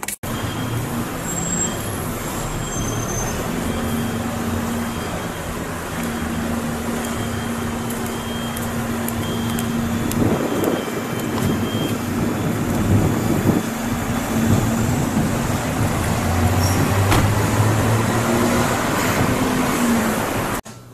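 City street traffic: motor vehicles running and passing on a busy road, over a steady low hum. It cuts off suddenly near the end.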